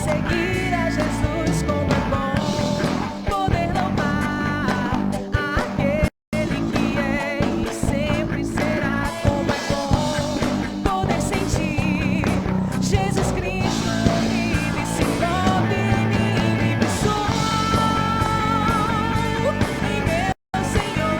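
Christian worship band playing a rock song live: singing with vibrato over electric guitar, bass guitar and drum kit. The sound cuts out completely twice, very briefly, about six seconds in and near the end.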